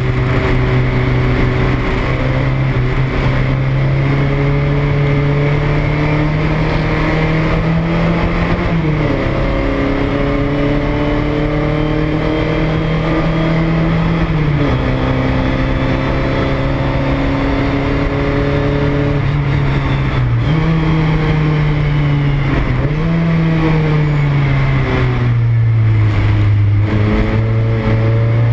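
Porsche 924 race car's four-cylinder engine heard from inside the cabin, pulling under load with its pitch climbing slowly, with several sudden drops in pitch through the lap.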